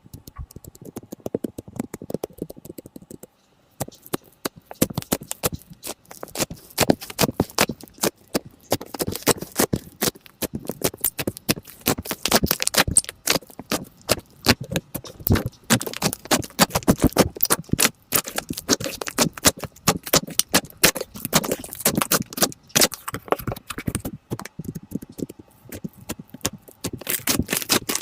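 Slime being squeezed, poked and stretched by hand: a dense run of wet, sticky clicks and pops, with a brief gap a little over three seconds in.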